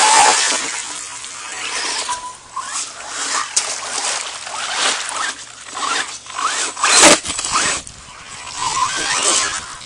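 Electric RC cars churning through a muddy puddle: motor whine rising and falling with the throttle over splashing water and spraying mud, with a loud splash about seven seconds in.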